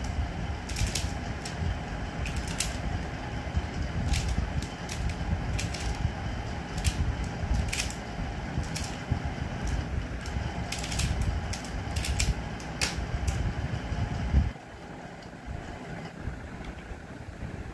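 Pyraminx puzzle being turned fast by hand, its plastic pieces clicking and clacking irregularly over a low rumble. About fourteen seconds in, one sharp tap stops the solve timer; the rumble drops away and only a few faint clicks follow.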